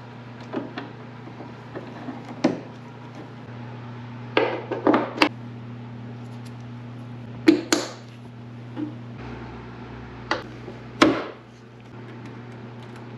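Hand tools clinking and knocking against the Volvo 240's tailgate hardware in irregular single strikes, about a dozen in all, the loudest near the middle and again near the end, over a steady low hum.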